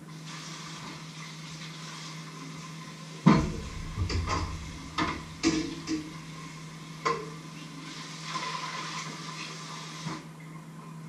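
Tap water running into a kitchen sink while dishes are washed, with several clanks and knocks of pots and a metal bowl, the loudest about three seconds in. The water stops about ten seconds in.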